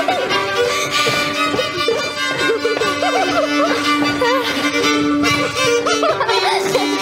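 Jihlava skřipka, a folk bowed fiddle, played solo: a folk tune with one long held low note beneath the moving melody.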